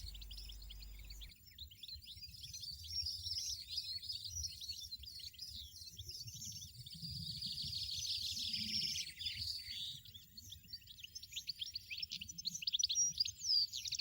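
European goldfinches chirping: a dense run of rapid, high twittering calls, thickest in the middle and again near the end.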